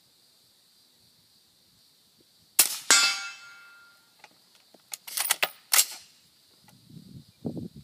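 Integrally suppressed .308 rifle firing a subsonic round: a sharp, muffled crack about two and a half seconds in, followed at once by a ringing metallic clang typical of a steel target being hit. More sharp cracks and clicks come about five seconds in, and some low rumbling near the end.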